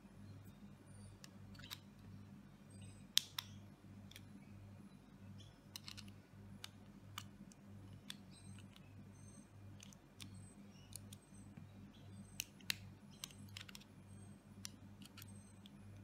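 Small sharp metal clicks and scrapes, scattered and irregular, as a small screwdriver works at the back of a die-cast lock cylinder. A faint steady low hum runs underneath.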